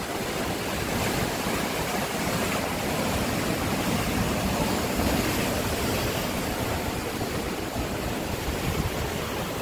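Sea waves surging and breaking over a rocky shore: a steady rushing wash of surf.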